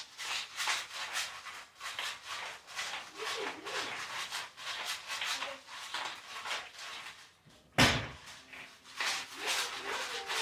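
Hand pepper mill being twisted to grind peppercorns: a steady run of crackling grinding clicks, about three a second, with one loud thump about eight seconds in.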